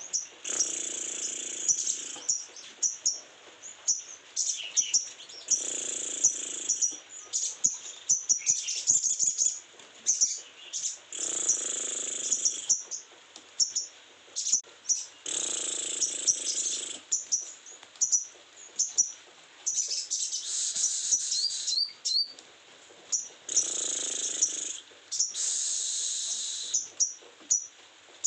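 A crimson sunbird (sogon), in full breeding condition, sings rapid high-pitched twittering bouts about every four to five seconds, with short single chirps between the bouts.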